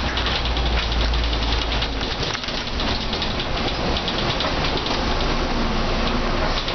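Mercedes-Benz O405N bus's engine and ZF automatic gearbox running from inside the saloon as the bus drives along, a deep rumble that eases back about two seconds in. Hiss of tyres on a wet road and rain runs underneath.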